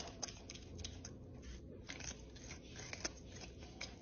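Prehensile-tailed porcupine gnawing kernels off a corn cob: crisp, irregular crunching clicks, a few a second, with a short pause about a second and a half in.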